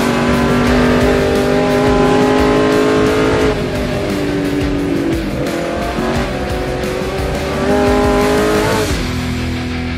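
Ford GT40's V8 racing engine heard from inside the cockpit at racing speed, running at high revs. Its pitch drops at a gear change about three and a half seconds in, dips again near five seconds, climbs steadily, then falls sharply near the end as the driver lifts off.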